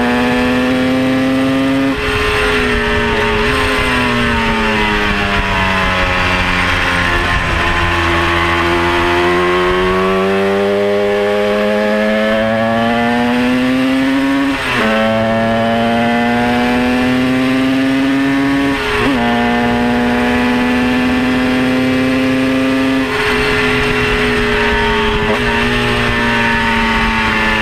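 Single-seater race car's engine heard from the cockpit at speed. The engine note sinks for several seconds as the car slows, then climbs steadily under acceleration, with quick upshifts about halfway through, again a few seconds later and again near the end, each a sudden drop in pitch. Wind rush runs beneath it.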